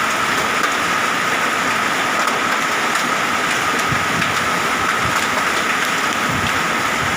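Heavy rain with hail pouring down in a thunderstorm: a steady dense hiss with scattered small ticks of hailstones striking.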